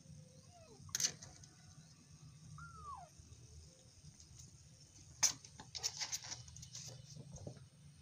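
A kitten mews once, a short high call falling in pitch, about three seconds in, with a fainter mew near the start. Two sharp clicks, the loudest sounds, come about one second and five seconds in, and a patch of scuffling clicks follows the second one.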